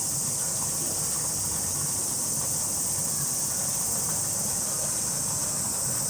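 A chorus of cicadas droning steadily in a high-pitched hiss, over a low background rumble.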